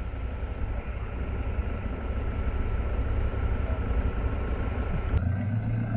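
Low, rumbling drive noise of an off-road 4x4 moving slowly along a rough dirt track, heard from inside the cab, with a faint steady whine over it. About five seconds in the sound cuts abruptly to a steadier engine hum.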